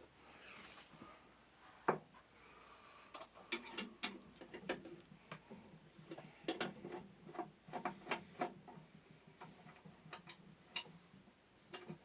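Irregular small clicks and ticks of a Phillips screwdriver working screws out of a table fan and handling its metal parts, with one sharper click about two seconds in and clusters of quick clicks after.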